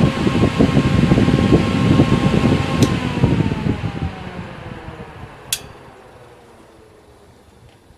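Small all-metal solder fume extractor fans running at full speed, with rushing air and a steady whine. Just before three seconds in there is a click, and the whine then slides down in pitch as the fans spin down and the air noise fades away. A second sharp click comes about halfway through.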